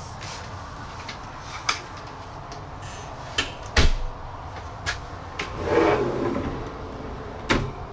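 Pull-out pantry cabinet with wire baskets in an Airstream Flying Cloud trailer galley being opened by hand. A series of sharp clicks and knocks from the cabinet door and hardware, the loudest a little under four seconds in, with a short sliding rush around six seconds in.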